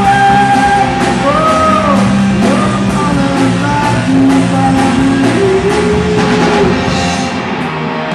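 Live rock band playing: a man sings held, bending notes into a microphone over a drum kit and electric guitar, with drum hits about twice a second.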